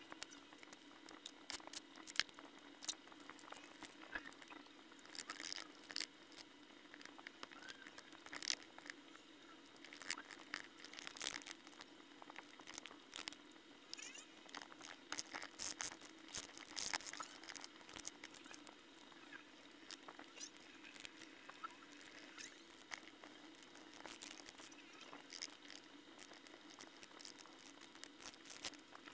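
A wooden pick scraping and picking at the corrosion on an aluminium-bronze Australian one-dollar coin: faint, irregular scratching with sharp little clicks, sometimes several close together.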